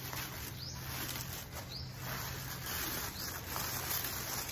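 Honeycomb kraft-paper packing wrap rustling and crinkling as it is pulled out and handled.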